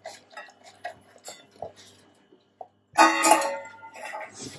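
Two beagles eating breakfast from stainless steel bowls: a run of quick, quiet clicks and crunches. About three seconds in, loud plucked-guitar music comes in and drowns them out.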